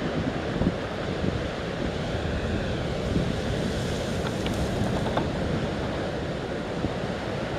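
Gusty wind buffeting the microphone over steady surf, with waves breaking against the concrete breakwater blocks and throwing up spray.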